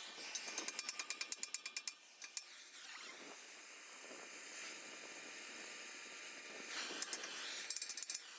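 Rapid mechanical clicking, about eight clicks a second, for the first two seconds. A steady hiss follows, and a short run of clicks comes back near the end.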